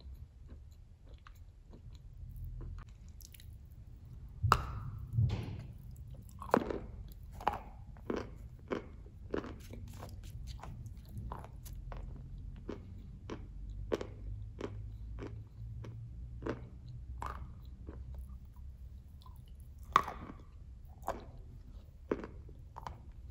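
Close-miked chewing of a hard, green-glazed edible clay tile: crisp crunches come roughly one or two a second once chewing gets going about four seconds in. A few louder bites stand out, the loudest near the start of the crunching and one near the end.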